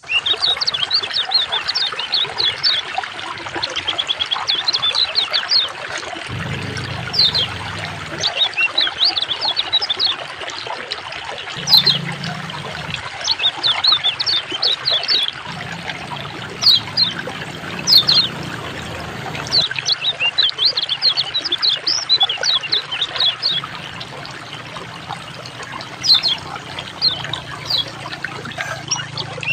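A songbird singing in repeated bursts of quick, falling high notes, over steadily trickling water. A low hum comes and goes underneath.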